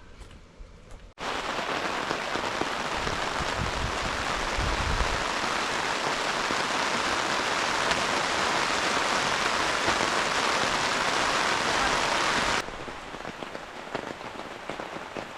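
Heavy rain pouring down in a sudden downpour. It comes in abruptly about a second in and drops to lighter rain near the end.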